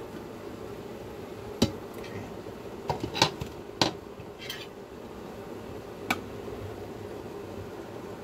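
Metal ladle, pan and lid clinking and clanking in a handful of sharp separate knocks, the loudest a few seconds in, over a steady low hum.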